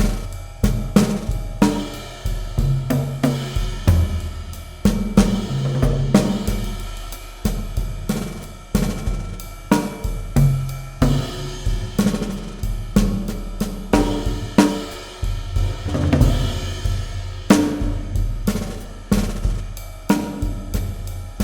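Instrumental jazz break with the drum kit to the fore, snare, hi-hat and cymbal strokes over low bass notes, the mix run through a sampled concrete echo-chamber reverb.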